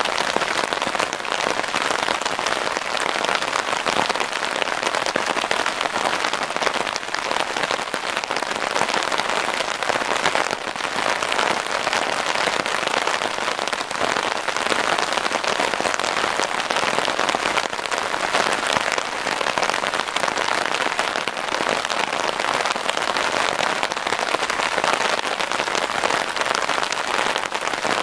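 Steady rain falling, a dense, even patter of drops with no let-up.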